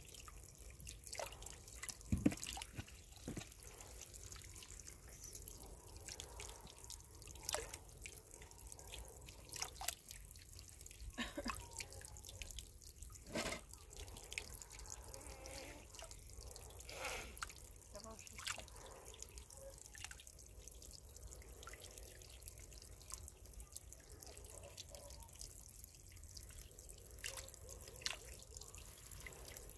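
Water dripping and splashing in small, irregular drops onto stone and soil, over a faint steady low hum.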